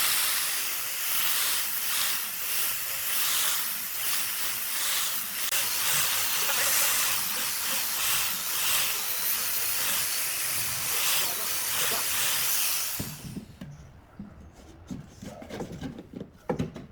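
Compressed air hissing steadily, swelling and easing in uneven pulses, cutting off about 13 seconds in. After it, a few faint knocks.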